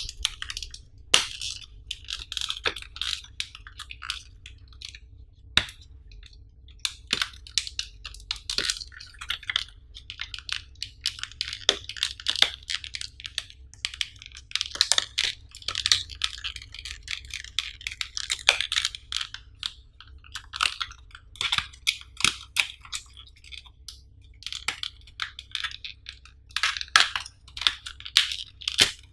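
Clear plastic blister pack crinkling and crackling as it is worked open by hand, in an irregular string of sharp clicks and crackles.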